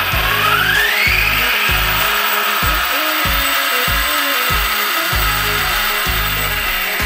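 Brushless electric motor and drivetrain of a 1/7-scale RC off-road truck spinning its wheels in the air. Its whine rises in pitch over the first second or two and then holds high and steady, over background music with a bass beat.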